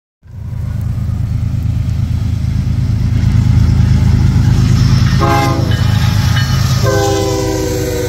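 GE ES40DC freight locomotive approaching and passing, its diesel prime mover running loud with a deep steady rumble. Its Nathan K5HL air horn sounds a short blast about five seconds in, a brief toot, then a long blast near the end, the pattern sounded for a grade crossing.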